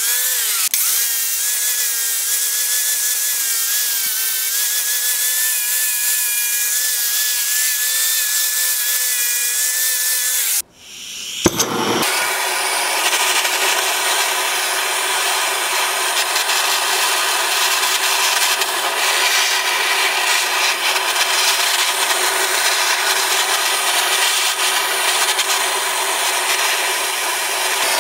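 A steady hiss with a faint wavering whine runs until a brief cut about a third of the way in. Then comes a sharp click, and a handheld gas torch's blue flame hisses steadily against the steel railroad spike it is heating.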